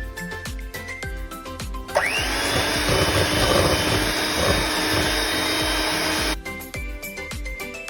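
An electric hand mixer beating egg and brown sugar. It starts about two seconds in with a quick rising whine, runs steadily for about four seconds, then cuts off. Background music plays throughout.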